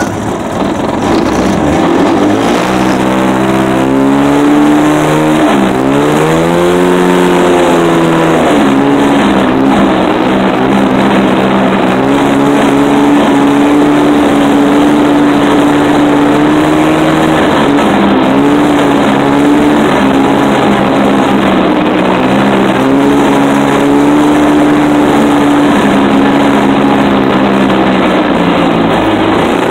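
Polaris Indy 500 snowmobile's two-stroke engine under way: the revs climb in the first few seconds, drop briefly and climb again, then hold fairly steady at speed with a few short dips as the throttle eases.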